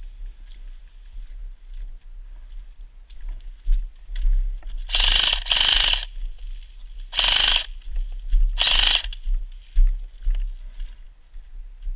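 Airsoft M249 SAW electric gun firing four short full-auto bursts, its gearbox rattling: two back to back about five seconds in, then two more at intervals of about a second and a half.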